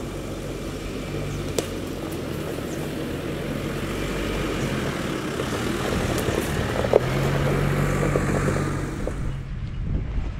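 Jeep Wrangler engine running at low speed as it climbs a dirt forest track, growing louder as it approaches and passes close by, with a few sharp cracks from the tyres over stones and twigs. Near the end the sound drops abruptly to a fainter, more distant engine.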